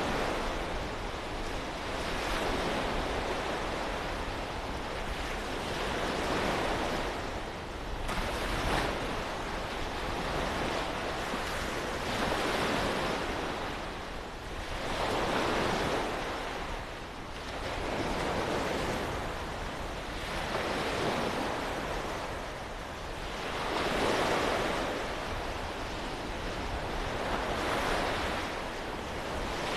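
Waves from the Great Belt breaking on a beach, each one swelling and washing out every few seconds, with wind rumbling on the microphone.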